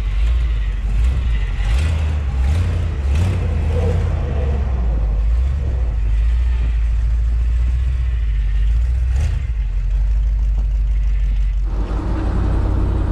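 A 1979 Ford F250 pickup driving on the road: a steady low engine and road rumble, with a few brief knocks early on and once more later, the sound growing fuller near the end.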